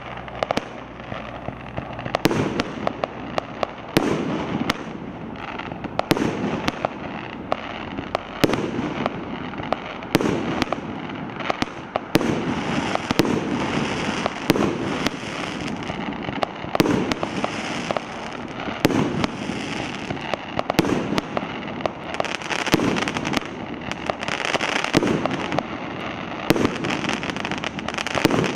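Hallmark Fireworks 'Halcyon Days' firework barrage firing: sharp shots every second or two, with dense crackling from the bursting stars in between.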